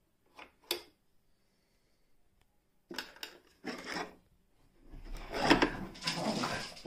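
Handling of a sewing machine's wooden case: two light taps, then wood rubbing and scraping as the wooden compartment and its lid are moved, loudest near the end.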